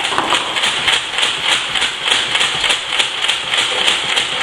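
Lego Mindstorms motor mechanism working a Nerf blaster as it shoots by itself: a steady mechanical whir with rapid, even clicks about five a second.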